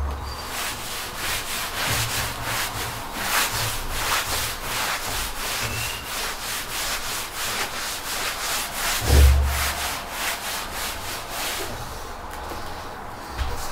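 Cotton cloth rubbed in quick back-and-forth strokes over a freshly oiled wooden table top, buffing off the excess hard-wax oil that has not soaked in. One dull low thump about nine seconds in, and the strokes die away near the end.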